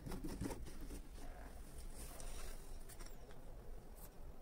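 Light clicks and knocks of plastic oil bottles, a plastic cup and a syringe being handled, clustered in the first half second, then a few scattered small taps.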